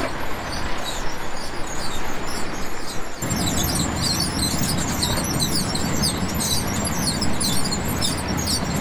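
Onion harvesting machinery running steadily, its low hum growing heavier about three seconds in, with many short high-pitched chirps over it.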